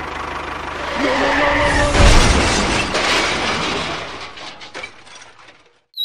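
A crash sound effect: a loud clattering, breaking smash that peaks about two seconds in and then dies away.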